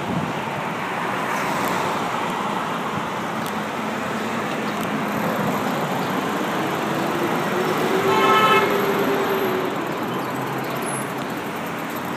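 Heavy city street traffic running steadily around a moving bicycle. A vehicle horn honks once, briefly, about eight seconds in, the loudest sound.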